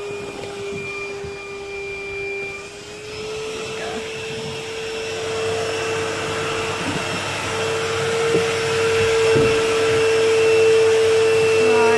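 A vacuum running steadily, sucking debris and water out of the bottom of the boat's hull, its hum stepping up slightly in pitch about three seconds in.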